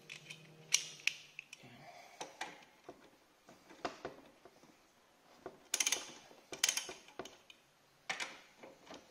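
Ratchet wrench with an 8 mm socket clicking in short bursts, mixed with scattered knocks of the tool, while loosening the mounting bolt of a scooter's ignition coil. The densest runs of clicks come about six and seven seconds in and again just after eight seconds.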